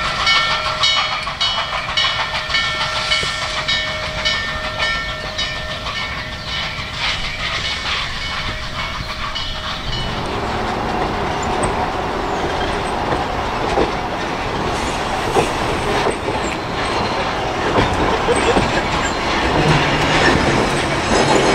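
Norfolk & Western 611, a class J 4-8-4 steam locomotive, working along with regular exhaust beats under steady ringing tones. About ten seconds in this gives way to its train of cars rolling past with a dense rumble and wheel clatter.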